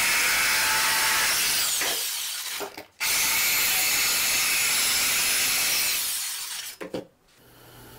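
Corded jigsaw cutting through MDF, its motor running at a steady whine. It is switched off a little over two seconds in and winds down, starts up again at about three seconds, and is switched off again at about six seconds, winding down with a few light knocks as it is set aside.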